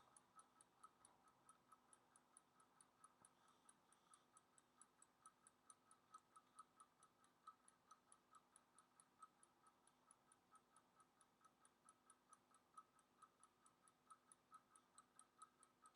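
Near silence: faint room tone with a very quiet, fast, even ticking, several ticks a second.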